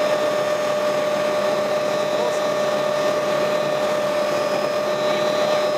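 Helicopter in flight heard from inside the cabin: a steady drone of engine and rotor noise with a constant high whine running through it.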